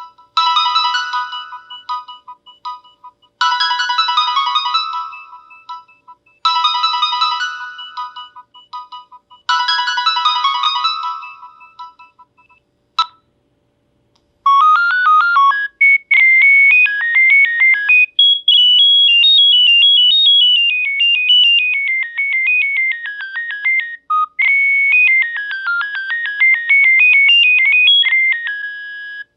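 Nokia 7650 stock ringtones playing. First a short bright chiming phrase repeats four times, about every three seconds. Then, after a click and a short pause, a second ringtone plays a quick melody of beeping notes that climb and fall.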